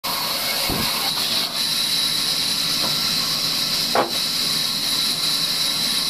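Sawmill band saw running and ripping lengthwise through a timber beam: a steady, high-pitched hiss. There is a low thump just under a second in and a sharper knock about four seconds in.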